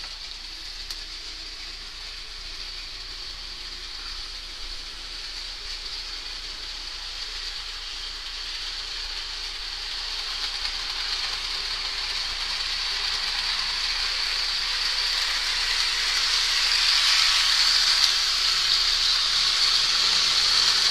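Model freight train running along the layout track, the wheels and cars making a steady rolling hiss that grows louder.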